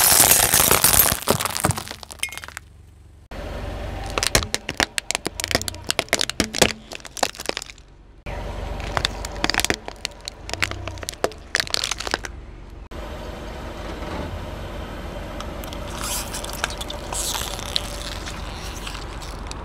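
A car tyre rolling over fluorescent tubes, the glass shattering loudly at the start. After a brief pause come two runs of rapid sharp cracks and crunches as hard plastic toy trucks break under the tyre. In the last few seconds a quieter, steadier sound follows as the tyre squashes slime.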